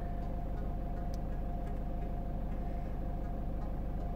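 PSA HDi diesel engine idling steadily at about 740 rpm.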